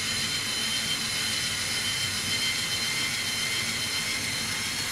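InStyler rotating-barrel hair iron running with a steady motor whir and hiss, held clamped on a strand of hair wrapped around its heated barrel.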